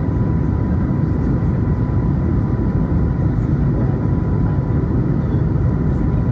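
Steady cabin noise of an Airbus A321neo climbing after takeoff: engine and rushing-air noise, strongest in the low range, with a thin steady whine above it.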